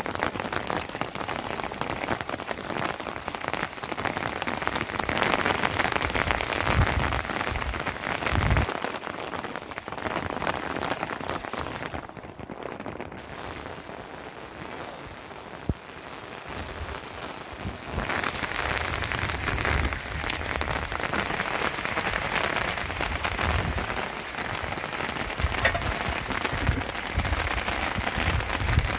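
Steady rain pattering on plastic sheeting and gravel, a dense hiss of countless drops. It turns duller for several seconds about twelve seconds in, then comes back at full strength.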